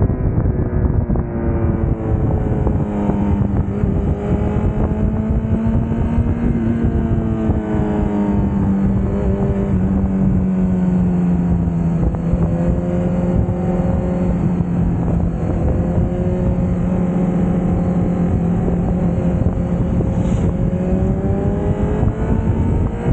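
Honda CBR1000RR's inline-four engine running at steady riding revs, its note drifting slowly lower and then higher with the throttle, with wind rushing over the bike-mounted microphone.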